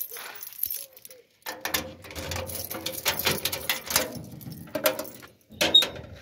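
A steel gate being unlocked by hand and opened: keys and lock rattling and scraping for a few seconds, then a sharp metal clank near the end.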